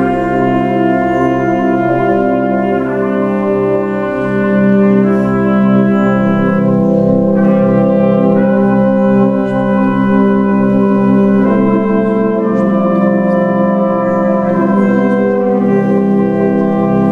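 Fanfare band of brass and saxophones playing slow, sustained chords that change every few seconds.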